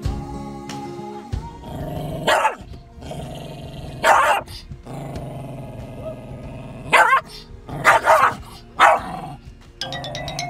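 A small long-haired dog barking in short, separate bursts, about five times, alert barks at a stranger just outside the car window.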